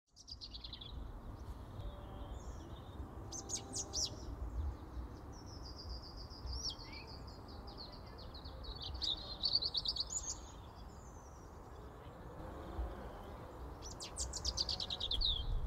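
Songbirds singing outdoors: short calls, a long trill through the middle and a descending trilled phrase near the end, over a steady low rumble.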